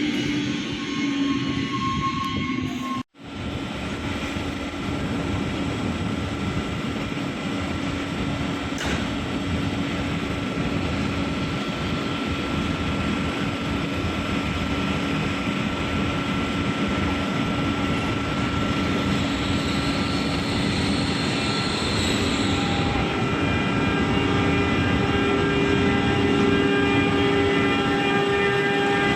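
Train passing through the station: a continuous rolling rumble with steady whining tones over it. The sound cuts out for an instant about three seconds in, then resumes just as steady.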